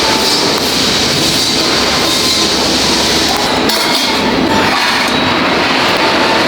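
Steady mechanical rattling and rumbling of factory assembly work, with a few faint steady tones running through it.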